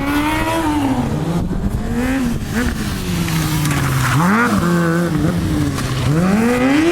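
Stunt sport motorcycle engine revving up and down repeatedly as the rider works the throttle. A sharp rev rises from a low idle about four seconds in, and another climbs to a peak near the end and falls away.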